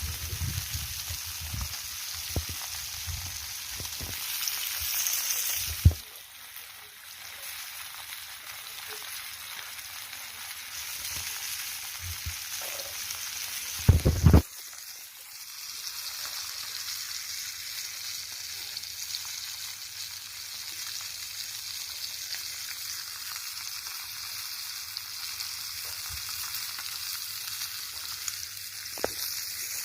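Fish frying in hot oil in a pan over a wood fire: a steady sizzle, with two sharp knocks about six and fourteen seconds in.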